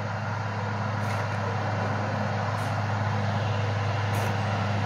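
Caterpillar 12G motor grader's diesel engine running steadily as the machine moves forward, growing slowly louder as it comes closer.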